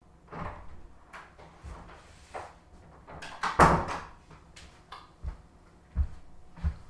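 Someone moving about in a small room: a run of knocks and clunks, the loudest just past halfway, then heavy footsteps on the floor as a person walks in.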